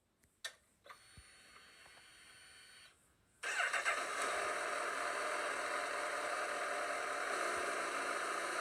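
Honda CB1000R motorcycle's inline-four engine running steadily, cutting in abruptly about three and a half seconds in after a near-silent start with a faint click.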